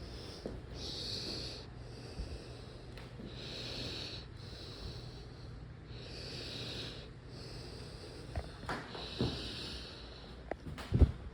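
A person breathing heavily and audibly close to the microphone, a hissy breath every second or so, about seven or eight in all. A sharp knock near the end.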